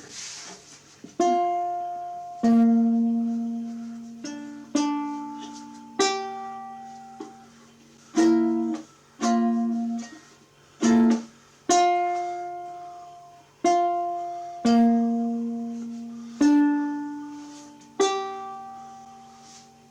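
Tenor ukulele strummed one chord at a time: each strum rings and fades before the next chord, one every second or two, with a few strums damped short.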